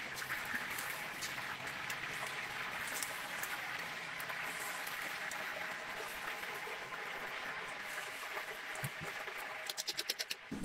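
Whole battered chickens deep-frying in a wok of hot oil, the oil sizzling with a steady hiss. Near the end comes a quick run of sharp clicks.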